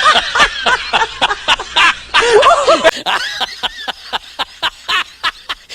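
Laughter in quick, rhythmic bursts, about five or six a second, turning sharper and more clipped about halfway through.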